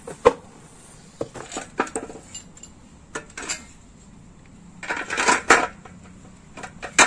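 Metal clinks and knocks from an assembled aluminium motorcycle engine crankcase being handled, turned over and set down on a steel stand. There is a sharp knock just after the start, scattered light clinks, and a denser burst of clattering about five seconds in.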